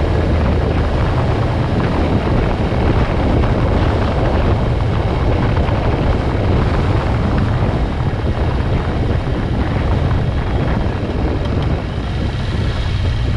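Steady rumble of a motorcycle riding at road speed, with wind rushing over the bike-mounted microphone mixed with engine and tyre noise.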